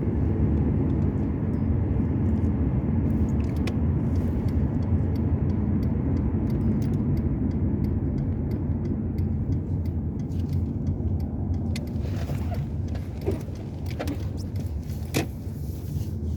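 A car running with a steady low rumble, with scattered light clicks and jingles over it, more of them in the last few seconds.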